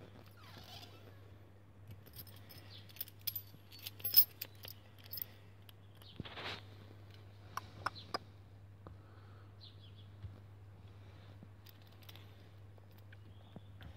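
Scattered small clicks and light rattles, the sharpest about four seconds in and a few more near eight seconds, over a faint steady low hum.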